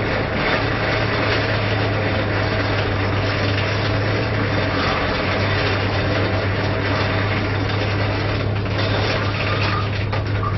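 Blacksmith's forge running: a steady roaring hiss over a constant low hum, with no hammer blows standing out.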